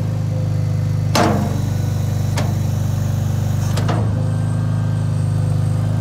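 Mustang 921 skid steer loader's engine running steadily under a driven machine, with three sharp clanks from the loader about a second, two and a half and four seconds in, the first the loudest.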